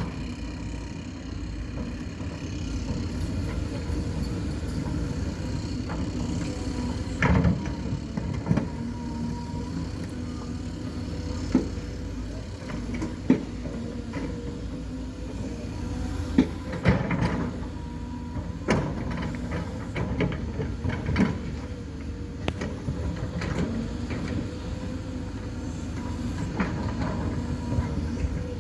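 Heavy diesel earthmoving machine running steadily at work, its engine drone broken by scattered sharp metallic knocks and clanks.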